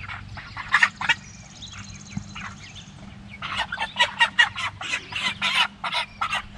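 White meat chickens clucking in short, rapid calls as they are grabbed in the pen: a few calls about a second in, then a quick run of them in the second half.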